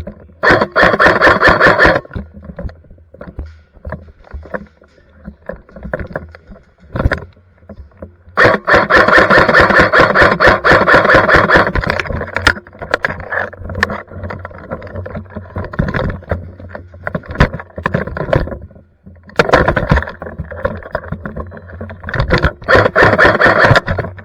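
Electric airsoft light machine gun (Krytac Trident Mk II AEG) firing full-auto bursts: the gearbox motor whirs with a rapid, even rattle of shots. There is a short burst near the start, one long burst of a few seconds in the middle, and two more bursts near the end, with scattered single clicks between them.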